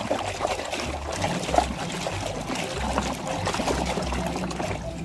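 Water running and trickling as a muddy toy vehicle is rinsed and washed, with an uneven splashing texture.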